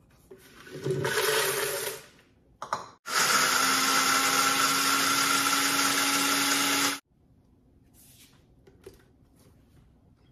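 A countertop jug blender grinding a jarful of dry roasted peanuts. It runs steadily for about four seconds and stops suddenly, leaving some peanuts whole. Shortly before it runs there is a brief rattling burst as the peanuts go into the plastic jar.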